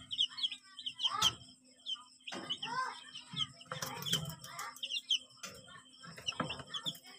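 A brood of young chicks peeping: many short, high, falling peeps in quick runs, with a few louder, lower voice-like sounds in between.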